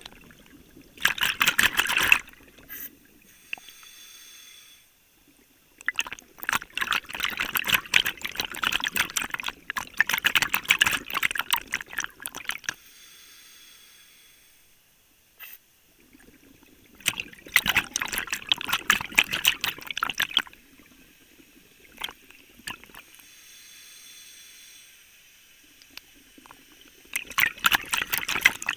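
Diver breathing through a regulator underwater: four long bursts of crackling exhaust bubbles, each followed by a quieter, hissing inhalation.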